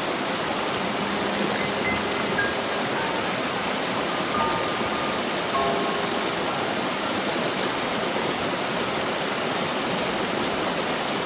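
Small mountain creek rushing steadily over boulders and riffles, with a few faint, sparse held notes of soft music above the water.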